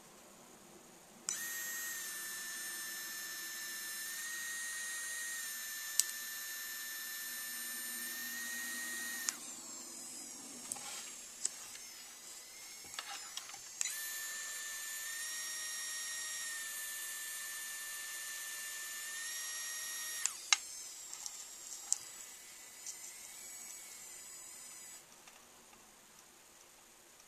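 3Doodler 3D printing pen's extruder motor running in two stretches of several seconds each, a steady high whine that stops and restarts, with a few sharp plastic clicks and taps in between.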